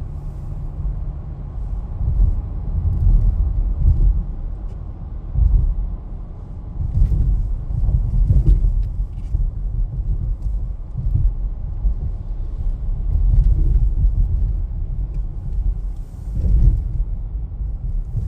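A car driving: a continuous low rumble of engine and tyres on the road that rises and falls.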